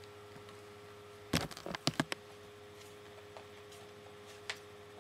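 Pages of a picture book being turned and the book handled close to the microphone: a quick cluster of papery rustles and knocks about a second and a half in, and one more click near the end, over a faint steady electrical hum.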